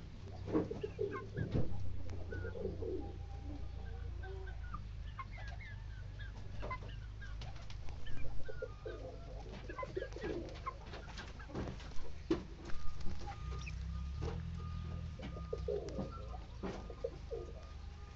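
Birds calling: low cooing calls and scattered short chirps over a steady low rumble, with a few louder clicks and knocks.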